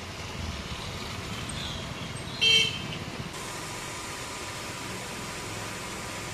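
Steady running of an engine-driven HTP sprayer with the hiss of its spray gun jetting water. About two and a half seconds in, a vehicle horn toots once, briefly, louder than everything else.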